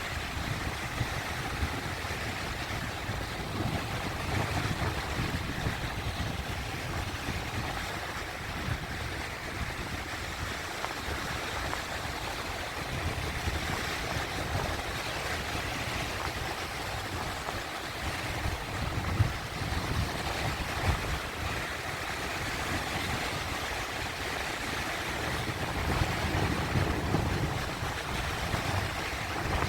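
Sea waves washing in, a steady rush of surf with uneven low rumbling swells, a little stronger near the end.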